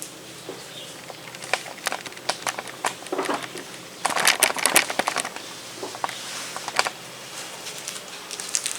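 Crinkling and rustling of a snack-cake wrapper and its paper being handled, with scattered small clicks and a busier crinkly stretch about four to five seconds in.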